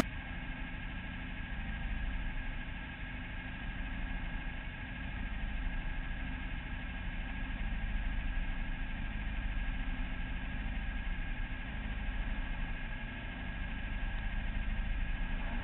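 Off-road race car engine idling steadily, its loudness slowly swelling and easing every few seconds.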